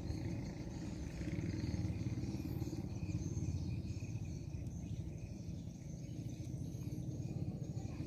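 Outdoor river-bank ambience: a steady low rumble, with insects shrilling faintly and continuously in the background.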